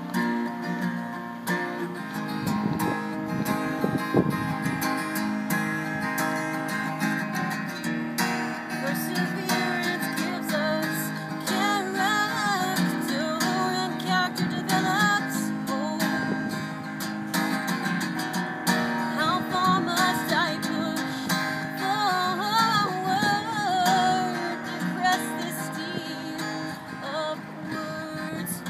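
Takamine acoustic guitar strummed in a steady rhythm. After about nine seconds a woman's singing voice joins, carrying a melody over the strumming.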